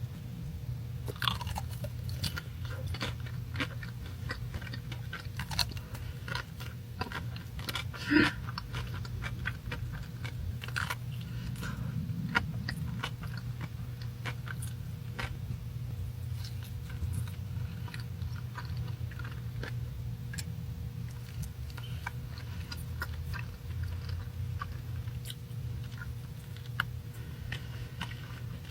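Close-miked ASMR eating: bites and chewing with many small crunchy clicks and crackles, the loudest bite about eight seconds in, over a steady low hum.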